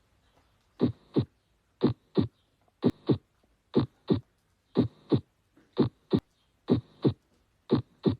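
Recorded human heart sounds: a steady lub-dub, eight paired beats about one a second, each pair two short thuds close together, with silence between pairs.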